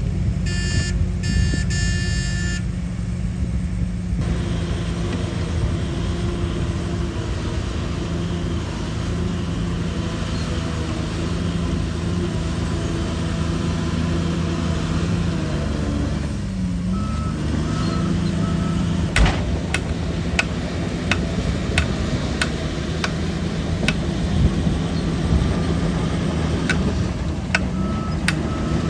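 Shantui DH17 bulldozer's diesel engine running steadily, its pitch sagging briefly about halfway through as it takes load. A reversing alarm beeps near the start and again later on, and sharp clanks sound in the second half.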